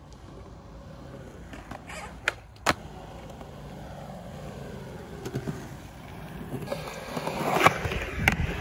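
Skateboard wheels rolling on concrete, a steady low rumble, with two sharp clacks of the board a few seconds in. Near the end the rolling gets louder and rougher, with one hard clack.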